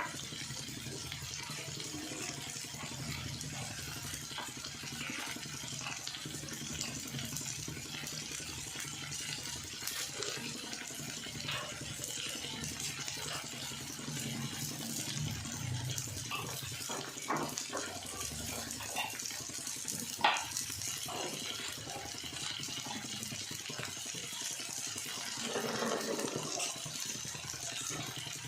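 Kitchen prep handling: scattered clicks and knocks of utensils and potato pieces, with water sloshing in a bowl. There is one sharper knock about twenty seconds in.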